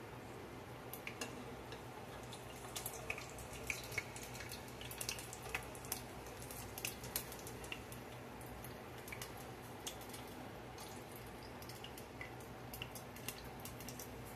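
Battered onion rings deep-frying in a pot of hot oil: faint crackling with scattered sharp pops, thickest in the first half and again near the end, over a steady low hum.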